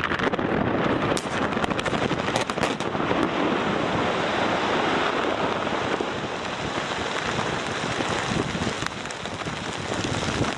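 Open-cut coal mine overburden blast: a sudden rush of noise with crackling detonations over the first few seconds, then a steady rumbling roar as the blasted rock and dust come down.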